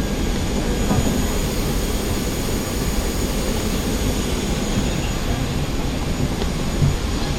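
Steady jet-turbine noise from a parked Boeing 737-800: an even rumble with a thin high whine on top.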